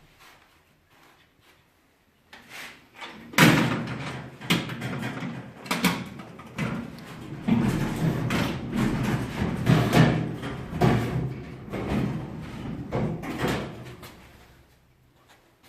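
Irregular knocking, clattering and scraping of hard objects being handled, starting a couple of seconds in and dying away near the end.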